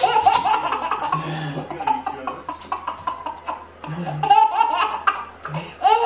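A baby laughing hard in repeated bursts: a long fit of laughter at the start, then more bouts about four seconds in and near the end.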